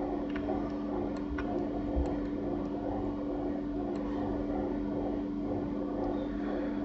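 Steady low hum of a running computer, with a few faint clicks scattered through.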